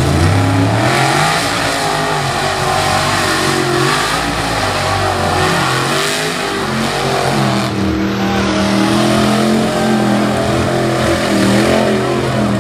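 Lifted mud-bog pickup truck's engine revving hard at full throttle as the truck launches and plows through the mud pit. The engine note climbs in pitch at the launch, dips, then climbs again about halfway through and holds high.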